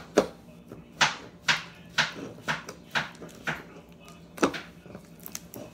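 Glitter slime with beads and cut-up straws squelching and popping as a hand presses and pokes into it, about two wet pops a second, with a short pause near the end.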